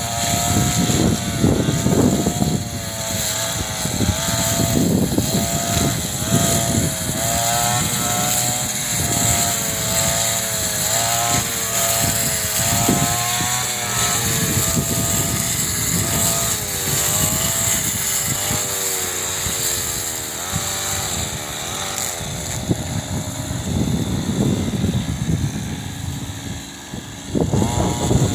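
Petrol brush cutter running while it cuts grass, its engine note rising and falling as the blade bites, growing fainter near the end. A gusty low rumble of wind on the microphone runs underneath.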